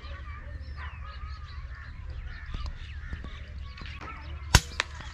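Many birds chirping and calling together over a low steady hum. About four and a half seconds in comes one sharp crack, the loudest sound, followed closely by a smaller click.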